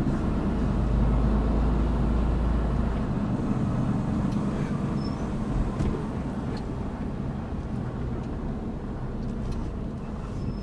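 Mercedes-Benz Actros truck engine running, heard from inside the cab as the truck rolls slowly. The low engine drone eases about three seconds in, and the sound grows gradually quieter.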